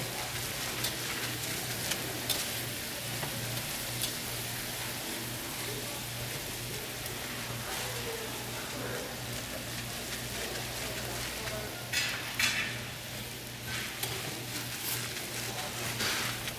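Gloved hands working raw ground meat in a stainless steel bowl on a scale: soft handling noises and a few light clicks, with louder rustling twice, about twelve seconds in and near the end. A steady hiss and a low hum run underneath.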